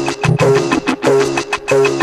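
Music with no singing: a short riff of low and mid notes repeating over and over, over a steady beat of about four hits a second.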